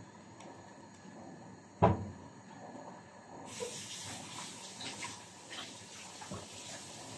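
Diced zucchini and tomato frying in a steel pot on a gas stove: a sizzle with small crackles that grows much louder about three and a half seconds in. A single sharp knock sounds about two seconds in.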